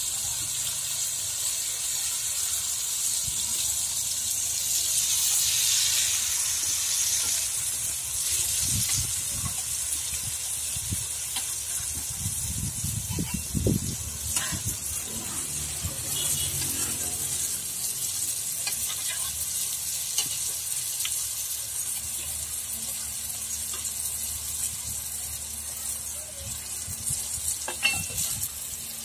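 Rice-flour peanut cracker batter frying in a large wok of hot oil: a steady sizzling hiss that swells about five seconds in. The metal spatula clicks against the wok a couple of times.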